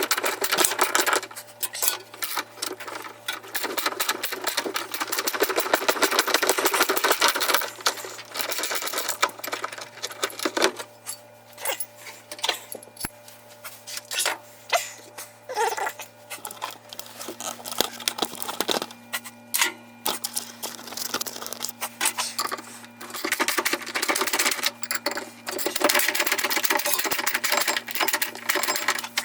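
Rapid, irregular metallic clicking and rattling of hand tools and loose parts as a front-load washing machine is worked apart, in busy spells with short pauses, over a steady low hum.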